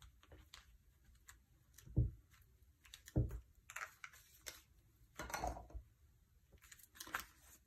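Light handling sounds of paper crafting: two soft knocks about two and three seconds in, then scattered brief brushing and tapping as a layered paper card is pressed flat by hand on a craft mat.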